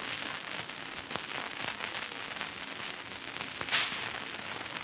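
Steady crackling noise full of small irregular clicks, with a brief brighter hiss a little before the end.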